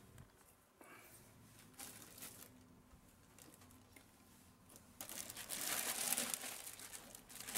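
A plastic bag rustling as a hand pulls at it inside a cooler box, starting suddenly about five seconds in after a quiet stretch with a few faint clicks.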